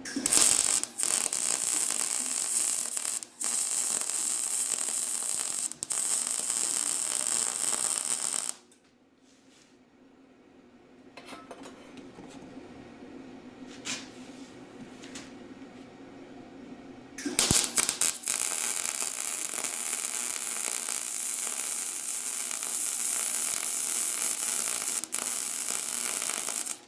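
Gas-shielded MIG welder arc crackling and hissing as beads are run on an exhaust header pipe. There are two long runs, each about eight to nine seconds, separated by a pause of about nine seconds, and the first run breaks off briefly a few times.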